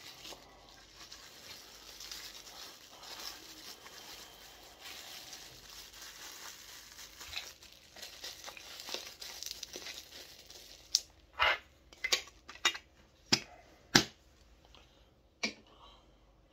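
Plastic wrap crinkling and tearing as it is peeled off and crumpled from a Funko Soda can, followed near the end by about seven sharp clicks or knocks.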